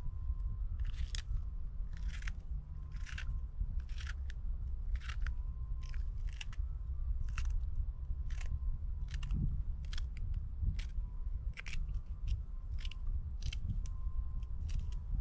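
Short, crisp crunching or scraping strokes repeating about once a second, coming a little faster near the end, over a steady low rumble.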